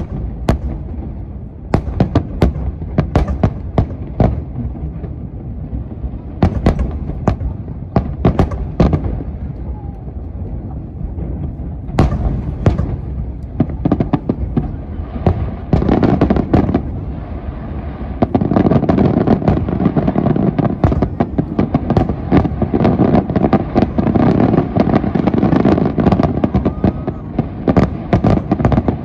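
Aerial firework shells bursting in quick succession, a string of sharp bangs; about two-thirds of the way through they merge into a dense, unbroken barrage.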